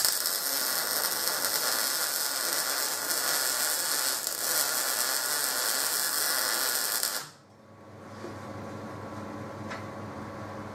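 Electric arc welder laying a tack weld: a steady, crackling hiss that starts abruptly and cuts off suddenly about seven seconds in, leaving a faint background hum.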